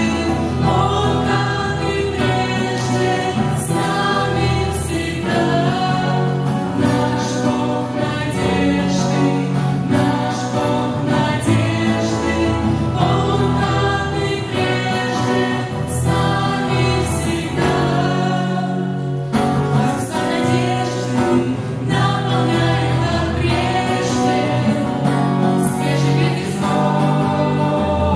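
Choral singing with instrumental accompaniment, in the style of a Christian hymn or gospel song.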